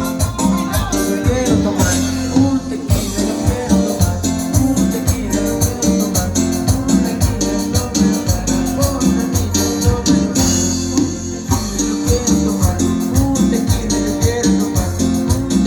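Cumbia band music with a steady, even beat and Latin percussion.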